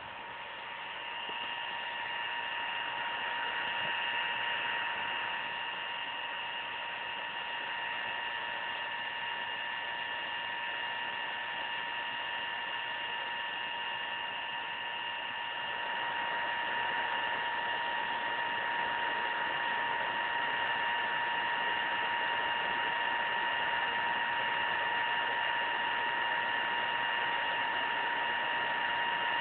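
Alienware M17x laptop's cooling fan running fast: a steady whirring hiss with a high whine of several steady tones, getting a little louder about sixteen seconds in.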